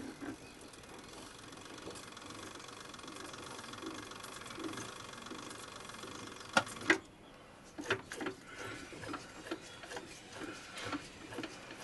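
Small milling machine's spindle motor running steadily as the tap in its chuck backs out of a freshly tapped hole. About seven seconds in there are a couple of sharp clicks and the motor stops, followed by light handling clicks and knocks.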